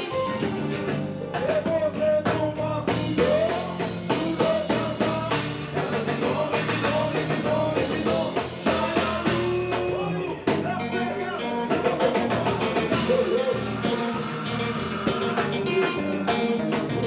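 Haitian kompa band playing live: a lead vocalist singing over electric guitar, bass, drum kit and percussion.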